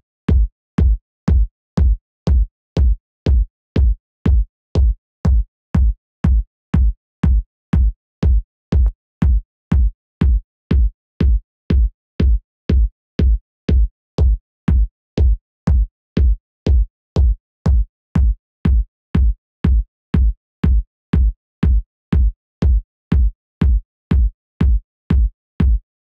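Electronic kick drum sample repeating on every beat, about two hits a second, each with its weight at the very bottom and a short click on top. It plays through a stereo-widening effect rack whose delay and detune settings are being adjusted.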